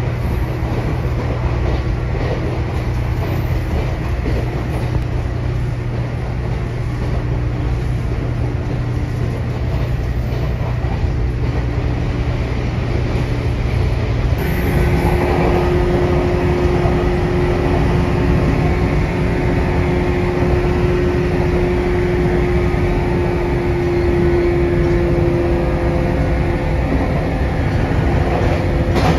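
Cabin running noise of a JNR-era 455/413-series electric train at speed: a steady rumble with a steady hum. About halfway through the sound changes abruptly to a brighter run with a stronger hum.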